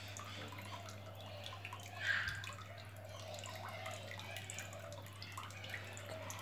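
Water dripping and trickling from a stone water bowl into a small pond, many small irregular drips over a steady low hum.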